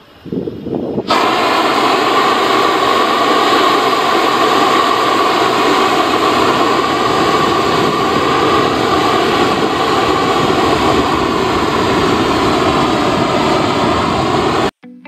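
Self-igniting propane torch burning at full flame to char wood, a loud steady noise that starts suddenly about a second in and cuts off just before the end.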